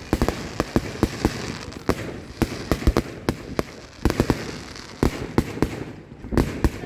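Close-range fireworks display: rapid clusters of sharp bangs from bursting shells, several a second at times, with crackling between them.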